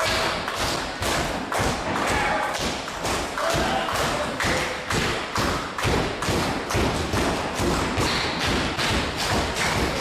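Background music with a steady thumping beat, about three beats a second, and faint melody over it.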